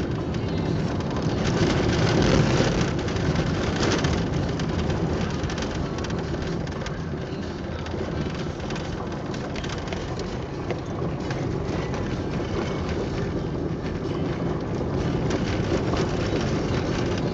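Inside a car driving on a rough dirt road: the tyres and suspension make a steady rumble with constant crackling from the road surface, a little louder about two seconds in.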